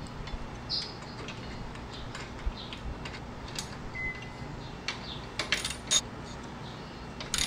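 Light metallic clicks and taps of a T45 Torx driver working the bracket screws on a motorcycle's rear fender as they are tightened. The clicks are scattered, with a quick cluster of several about five and a half seconds in and another near the end.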